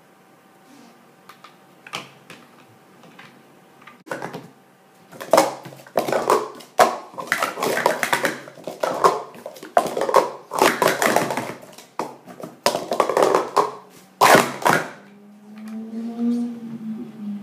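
New Speed Stacks Snaptops plastic sport-stacking cups clattering and clacking rapidly as they are stacked up and down on a StackMat, starting about four seconds in and stopping about fifteen seconds in. The cups are still stiff and being worked in.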